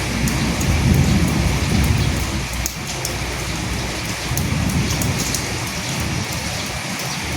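Steady rain falling, with individual drops ticking close by. A low rumble swells up twice.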